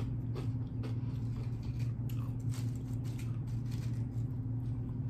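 Steady low hum with faint scattered clicks and light crackles of fingers handling food on a plate.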